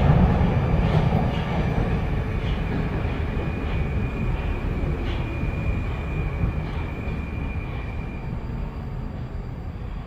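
Moskva-2020 metro train heard from inside the car as it slows into a station: a steady low rumble that fades as the train loses speed, with a thin high squeal held for several seconds through the middle.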